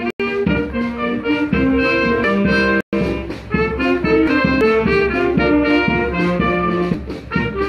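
A town wind band of brass and woodwind players playing a tune, with held and moving notes over a steady bass. The sound cuts out for an instant about three seconds in.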